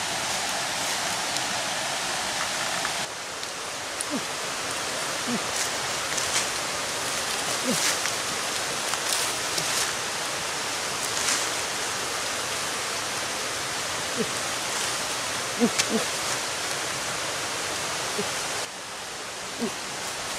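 Steady rushing noise, like a nearby stream, with light rustling of leaves and a few small snaps and clicks as tangerines are picked from the branches. The noise drops a little about three seconds in and again near the end.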